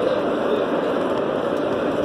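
Steady rumbling noise of a loaded hand luggage trolley rolling over a concrete railway platform, heard over the general noise of the station.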